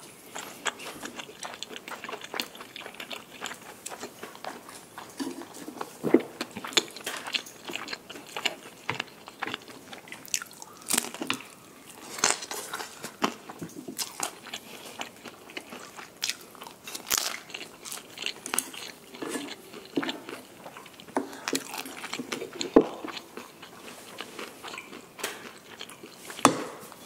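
Close-miked eating: repeated bites and chewing with crisp crunches and crackles, coming irregularly.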